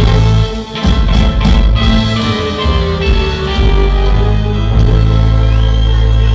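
Live band playing the closing bars of a song, with electric guitar, keyboards, bass and drums. The drum hits stop about five seconds in, leaving the band holding a sustained final chord.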